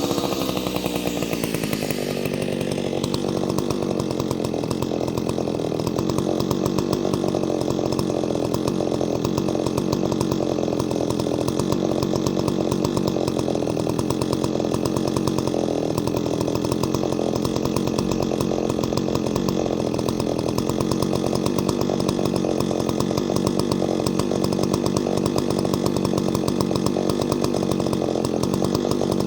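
Ported Solo 670 two-stroke chainsaw coming down off a rev in the first couple of seconds, then idling with an even, rapid firing pulse.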